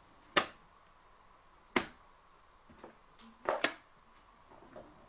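Sharp plastic clicks and knocks as the Numatic Hetty vacuum cleaner is put back together: one near the start, one a little later, then a quick double click, with a few fainter taps between.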